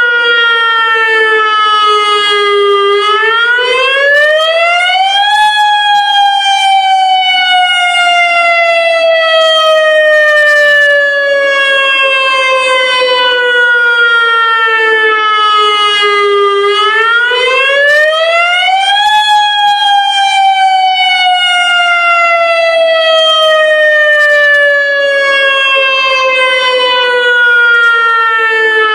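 Federal Signal Modulator lahar warning siren sounding its monthly test in a wail: the pitch climbs over about two seconds, then slides slowly down for about eleven. This happens twice, and it begins to climb again at the end.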